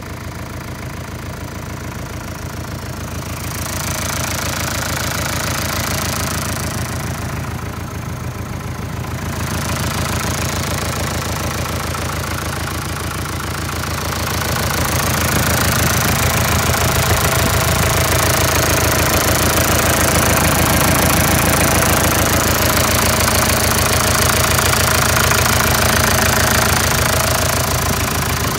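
Mitsubishi Canter's 4M51 four-cylinder diesel engine idling steadily, getting louder about four seconds in and again around fifteen seconds in.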